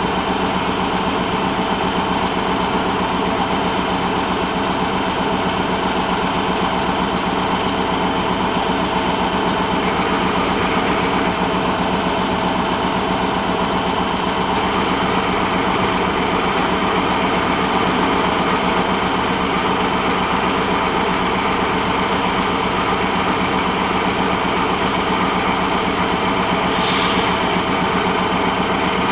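A heavy engine idling steadily the whole time, with a short hiss near the end.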